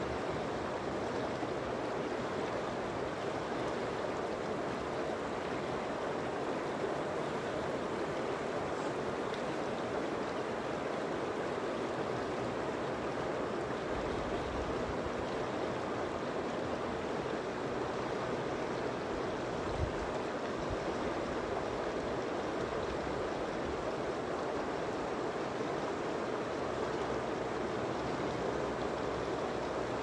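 Shallow river running over rocks and riffles: a steady rush of flowing water, with one brief low thump about two-thirds of the way through.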